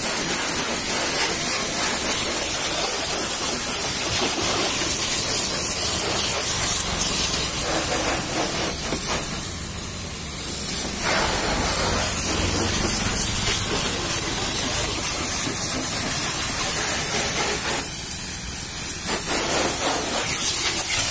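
Pressure-washer jet spraying water onto a car's bonnet and windscreen: a loud, steady hiss that eases off briefly twice, about nine seconds in and again near the end.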